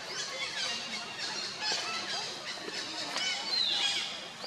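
An infant long-tailed macaque gives high-pitched squeals, the loudest a falling squeal about three and a half seconds in, over scattered high chirps.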